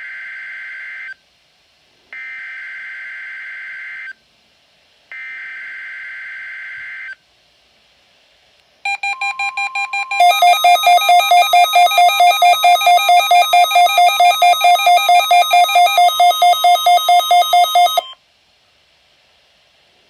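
NOAA Weather Radio SAME header bursts, two-second blocks of warbling digital data tones a second apart, heard through weather alert radios. They are followed by the radios' alert sounding: rapid loud beeping, about four beeps a second over a steady tone, for about nine seconds before it cuts off. The radios are alerting for a Required Weekly Test.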